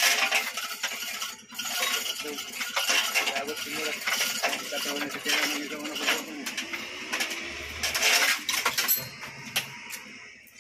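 Steel chains of a chain hoist jangling and clinking continuously, with sharp metal-on-metal clicks, as men work the hoist rigged to a Toyota 1C engine in its bay.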